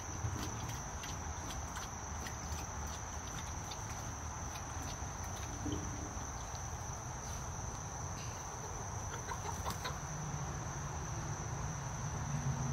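Insects buzzing in one steady high tone over a low outdoor rumble, with a few soft clucks from chickens near the end.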